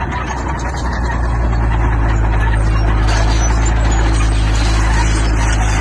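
Heavy diesel construction machinery running under load, a deep steady engine drone with a noisy rumble over it that swells over the first couple of seconds and then holds.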